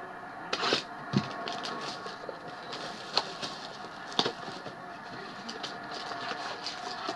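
A shrink-wrapped cardboard trading-card box being unwrapped and opened by hand: scattered crinkles, rustles and light taps, a few sharper ones about half a second, one, three and four seconds in.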